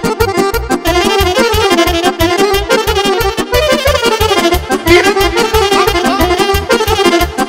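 Instrumental Romanian party dance music in horă and sârbă style: a melodic lead line over a fast, steady beat of about four strokes a second.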